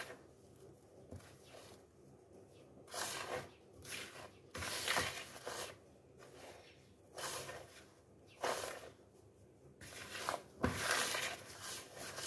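A hand mixing dry flour, sugar and spices in a plastic bowl: rustling, scraping strokes of fingers through the flour and against the bowl, coming irregularly about a second apart.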